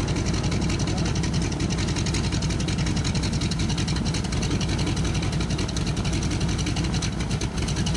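Grumman Duck amphibian biplane's radial engine running steadily at low power on the ground, a fast, even beat of firing pulses with no change in speed.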